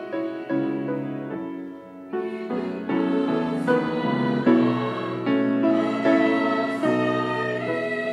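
Mixed church choir singing a Korean hymn in parts with grand piano accompaniment, the sound growing louder about two seconds in.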